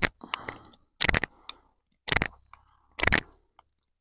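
Celtíbero Evolution bushcraft knife shaving a wooden stick to a point, in short scraping strokes about once a second. The blade is struggling to bite into the wood.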